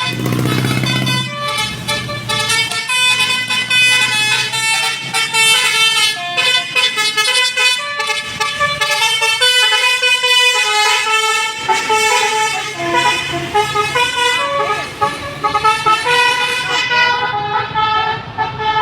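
Bus's 'basuri' telolet musical horn playing a tune, loud tones stepping from note to note.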